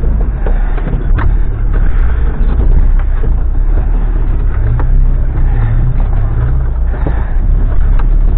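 Off-road vehicle's engine running under load, heard from inside the cab as it crawls over rough dirt, with a few knocks and rattles from the body over bumps. The engine note rises for about two seconds around the middle.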